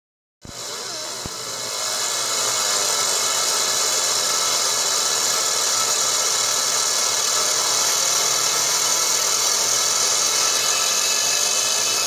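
Laser engraving machine working on a titanium knife grip: a steady high hiss with several steady tones. It starts with a click about half a second in and grows louder over the first couple of seconds.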